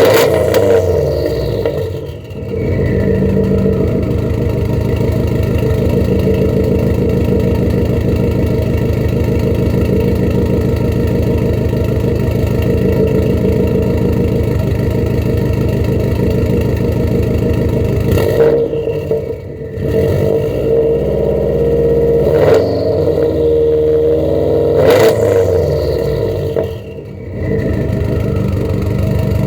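2004 Subaru WRX's turbocharged flat-four, straight-piped with no catalytic converters or resonators, idling steadily with a loud, raspy exhaust. It is revved once at the start and then blipped three times a few seconds apart near the end, dropping off sharply after each blip, with a turbo whistle falling away after the revs.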